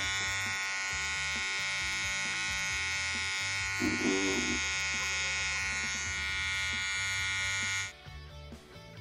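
Wahl cordless hair trimmer buzzing steadily as its T-blade cuts along the hairline, then switching off near the end. Background music plays underneath.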